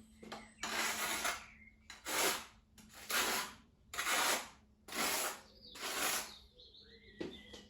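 Trowel scraping cement-based tile adhesive in six even strokes about a second apart.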